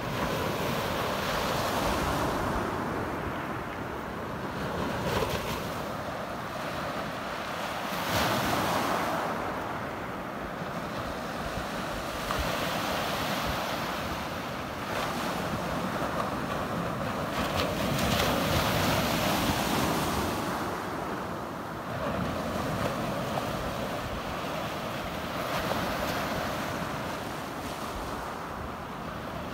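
Small waves breaking and washing up a pebble beach, the surf swelling every few seconds, with wind rumbling on the microphone.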